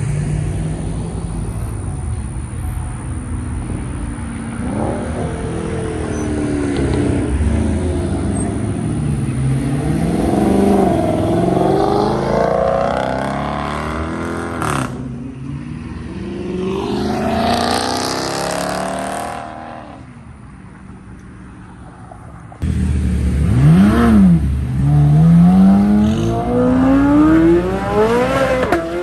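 Performance cars accelerating away, engines revving up and down as they pull off and pass. About three-quarters of the way through, after a quieter stretch, it cuts suddenly to a loud engine revving hard, its pitch dipping and then climbing steeply, as a yellow C8 Corvette launches away.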